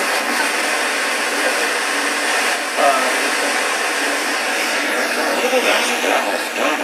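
Sanyo dual-cassette boombox's FM radio putting out a steady hiss of static through its small speakers, with a station's voice faintly breaking through now and then: weak FM reception.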